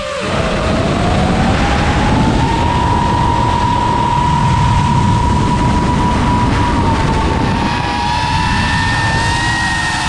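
FPV quadcopter's brushless motors whining as it flies, over a steady rush of noise. The whine climbs in pitch over the first couple of seconds as the throttle comes back up, then holds fairly steady.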